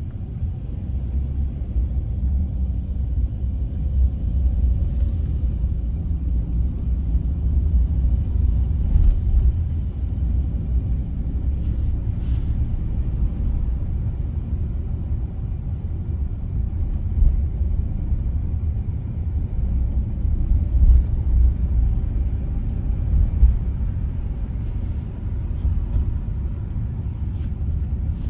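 Steady low rumble of a taxi driving on city roads, heard from inside the cabin, with a few faint clicks.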